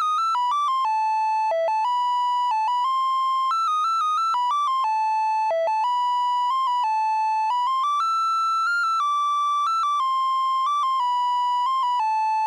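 A black mini robot toy car's built-in sound chip playing a simple electronic tune: one bright, buzzy beeping note at a time, stepping up and down at a steady loudness.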